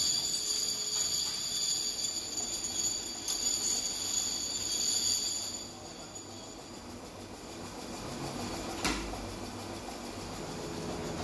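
Tumble-type shot-blasting machine with a load of metal brake shoes in its drum: a steady machine whine and clatter that stops about halfway through. Then a single sharp metal knock as the machine's steel door is shut and latched.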